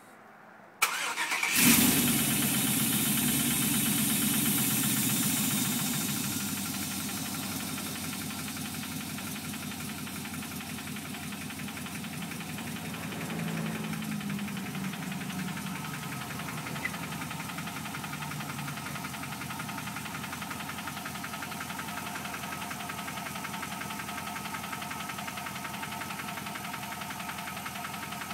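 Chevrolet 5.3-litre V8 cranked briefly and catching about a second in. It runs at a fast idle for a few seconds, then settles to a steady idle with a rhythmic knock that the owner can't place as a lifter tick or a rod knock.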